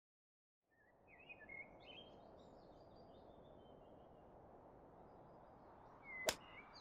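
Birds chirping over faint outdoor background, then near the end a single sharp crack of a golf club striking the ball.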